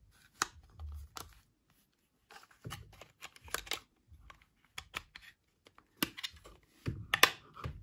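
Clicks, taps and scrapes of an airsoft pistol's magazine and its parts being handled and pushed as a stuck piece is worked back on, with dull handling bumps between the clicks.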